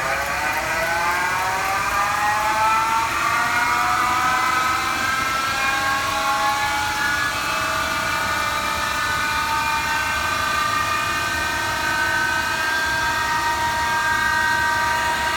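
Electric motor of a Leblond No. 1 universal tool and cutter grinder spinning up: a whine that climbs steadily in pitch for the first several seconds, then settles into a steady running hum once at speed.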